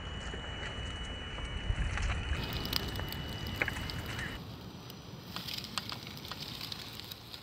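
A 1:10-scale RC rock crawler, a Vaterra Ascender, driving over rocks and dry leaves. Its electric motor and gears give a thin steady whine that stops a little past halfway, under the scrape and crunch of the tyres and a few sharp clicks.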